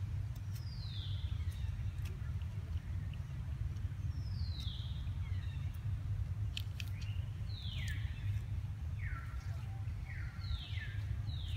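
A series of short, high animal calls, each falling steeply in pitch, about eight of them and coming closer together toward the end, over a steady low background rumble.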